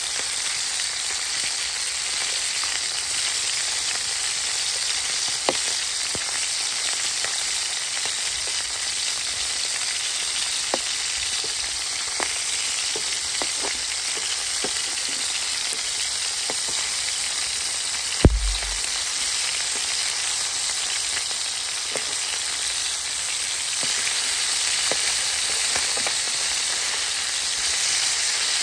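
Fish pieces shallow-frying in hot oil in a frying pan, a steady sizzle, with light taps and scrapes of metal and wooden spatulas as the pieces are turned. One louder knock about two-thirds of the way through.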